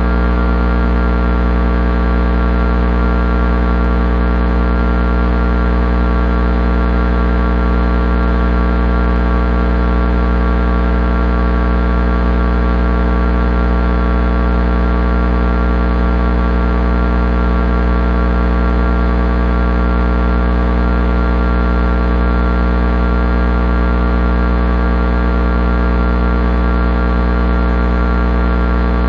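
Steady low hum of a high-voltage electric transformer: a deep drone with many overtones stacked above it.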